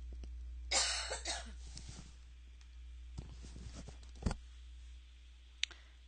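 A single short cough about a second in, then a sharp mouse click a few seconds later, over a steady low hum.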